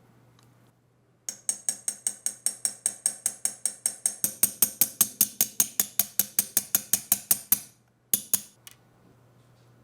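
A ratchet mechanism clicking in a fast, even run of sharp metallic clicks, about five a second and a little faster after the first few seconds. The run stops abruptly, and two more clicks follow a moment later.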